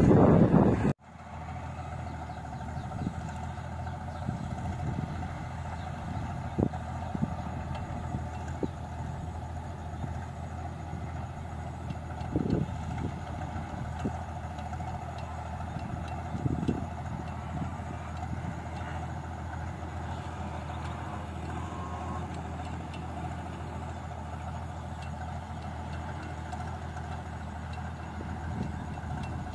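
Loud wind buffeting the microphone for about a second, then the steady running of a combine harvester's engine as its unloading auger pours rice paddy into a lorry, with a few faint knocks.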